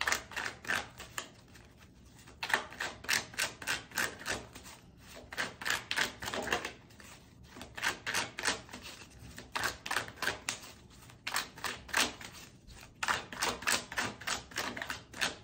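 A deck of tarot cards being shuffled by hand: runs of rapid crisp card clicks lasting a second or two each, with short pauses between runs.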